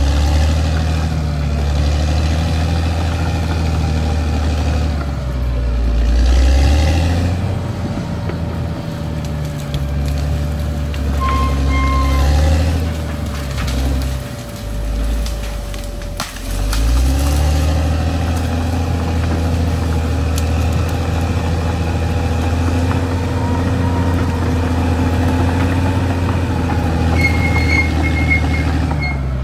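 Caterpillar D6R XL bulldozer's diesel engine running under load with a steady whine over it. Its note eases off about halfway through, then comes back up and holds steady.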